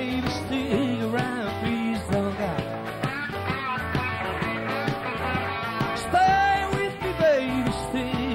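Live rock band music with a steady beat, bass and a lead melody line.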